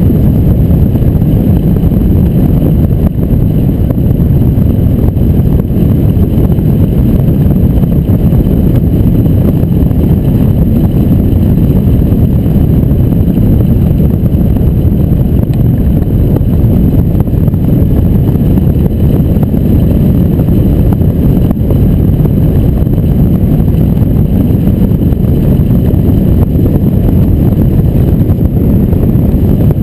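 Airflow rushing over a hang glider's keel-mounted camera in flight: a loud, steady, low wind rumble on the microphone.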